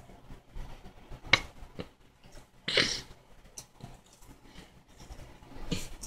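A person's short, sharp breaths: a quick one about a second in, a longer one about three seconds in, and another near the end, over a low steady room hum.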